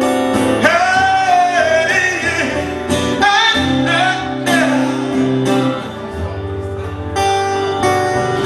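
Music: a slow song over acoustic guitar, with a voice holding and bending long notes between the lyric lines.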